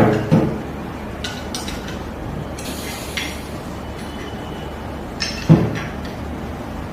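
Metal clinks and knocks from a monitor stand's C-clamp being handled and tightened onto a table, with a brief scraping hiss midway and a louder knock about five and a half seconds in.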